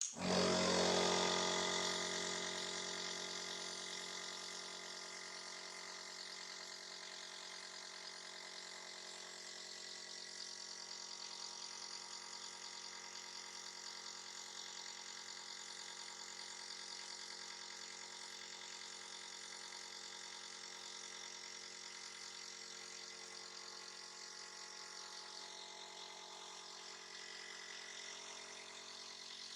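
Nebulizer compressor motor switched on, then running with a steady hum and hiss. It is loudest just after it starts and eases to an even level over the first few seconds.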